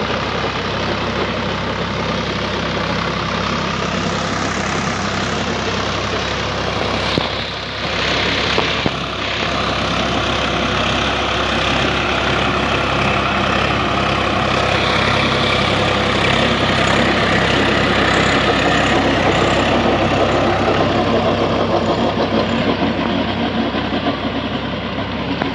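Swaraj 744 tractor's diesel engine running steadily under load while it drives a rotavator tilling the soil. The sound briefly drops and picks back up about a third of the way in.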